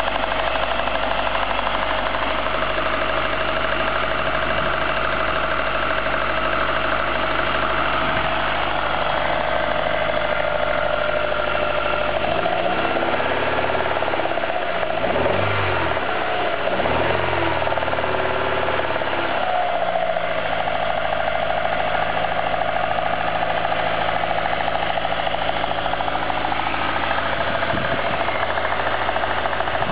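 Toyota ST202's four-cylinder engine running with an abnormal noise under investigation. It runs steadily, its speed rises and falls a few times in the middle, then it settles back to a steady idle.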